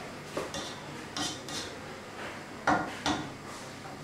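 Spatula stirring rice in a nonstick cooking pot: scraping and light knocks against the pot, with two louder knocks a little under three seconds in.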